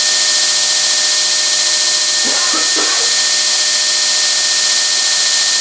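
Belt grinder's electric motor, fed by a frequency inverter, running steadily at nominal speed with a steady high whistle over a loud hiss. The whistle goes away at a lower frequency; the owner suspects a fault in the motor itself.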